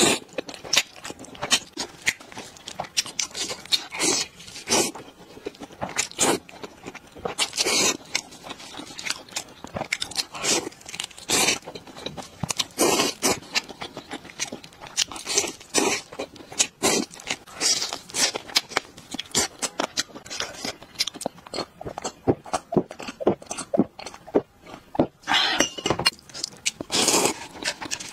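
Close-miked eating of spicy sauced noodles and fried chicken: wet noodle slurps and chewing, with crunchy bites. The sound comes in many short, irregular bursts, with a few longer slurps between them.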